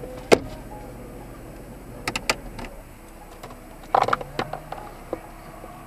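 A handful of sharp clicks and knocks: one loud click about a third of a second in, two more about two seconds in, a quick cluster about four seconds in and a last one about five seconds in, over a low steady background.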